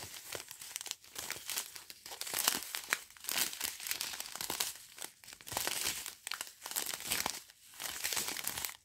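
Small plastic bags of round diamond-painting drills crinkling and crackling irregularly as they are handled on their card strip.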